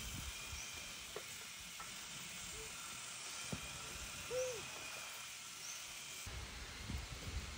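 Faint outdoor background: a steady hiss with thin, steady high tones, a few soft high chirps, and one short hoot-like call about four and a half seconds in.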